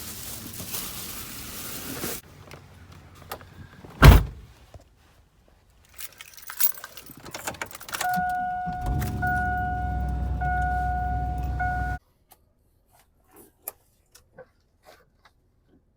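Truck door slamming shut, followed by keys jangling and clicks. The engine then runs while a warning chime beeps about once a second. The sound cuts off suddenly.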